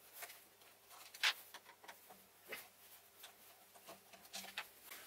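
Faint, scattered metallic clicks and ticks of a hex key working the bolts on a mini lathe's lead screw bearing, with one louder click about a second in.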